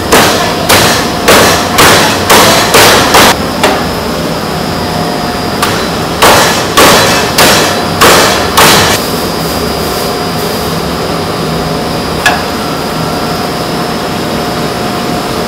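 Cleaver chopping through bone-in poached chicken on a thick wooden chopping block: a run of about seven heavy chops at roughly two a second, a short pause, another run of about six, then one lone chop later. A steady hum runs underneath.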